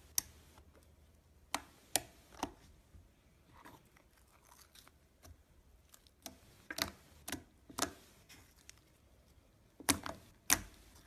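Slime being pressed and poked by hand, giving irregular sharp clicking pops, some in quick clusters, the loudest pair near the end.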